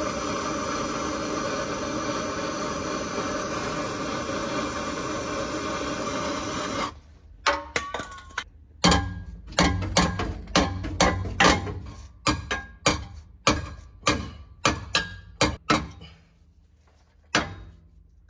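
Handheld gas torch flame running with a steady roar for about seven seconds, stopping abruptly. Then a ball peen hammer strikes the heated steel exhaust pipe about twenty times, two or three blows a second, tapping out a dimple so an adapter will fit, with a pause before one last blow near the end.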